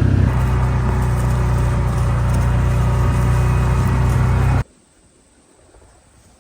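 A vehicle engine running steadily at an even speed. It cuts off suddenly about two-thirds of the way through, leaving only faint wind.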